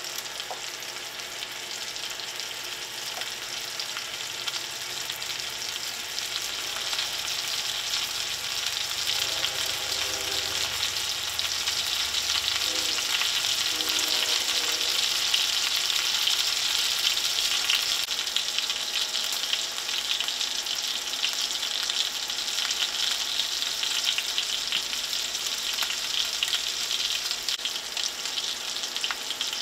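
Fresh Atlantic sea scallops searing in foaming fat in a stainless steel skillet: a steady crackling sizzle that grows a little louder over the first ten seconds or so, then holds.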